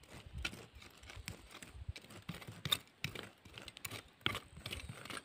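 Small hand hoes scraping and chopping into dry hillside soil while weeding among seedlings, in irregular short strikes and scrapes.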